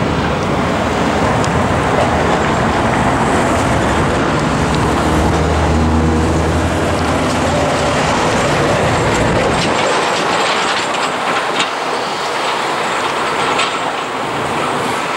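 Loud nearby vehicle noise: a steady rushing with a low engine drone that drops away about ten seconds in, followed by a few light clicks.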